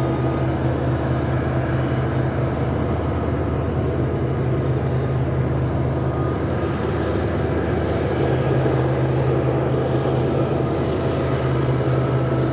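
Diesel locomotives of a coal train working steadily, a low engine drone with thin whining tones above it from the GE unit.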